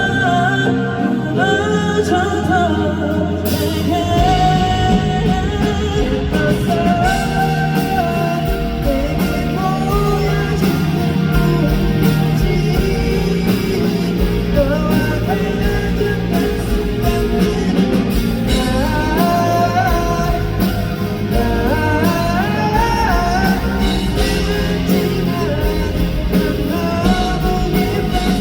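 Live pop-rock band playing a song with a male lead vocal over guitar, bass and drums. The drums and full band come in about three and a half seconds in.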